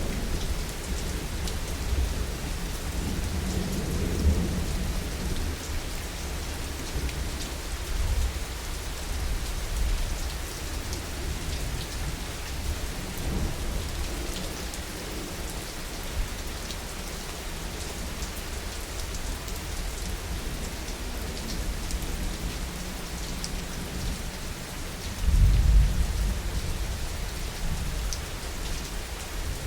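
Heavy rain falling steadily, with low rolls of thunder underneath; the loudest thunder roll swells up near the end.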